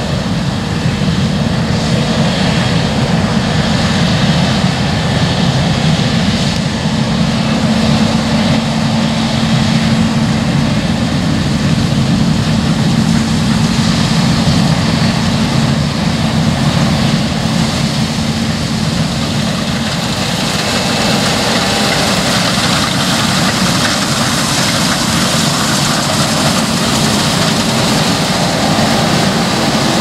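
New Holland CR9.90 combine harvester working in standing wheat: its engine and threshing machinery run steadily as one dense, continuous drone. The low hum eases slightly about two-thirds of the way through while the higher rushing noise comes up a little.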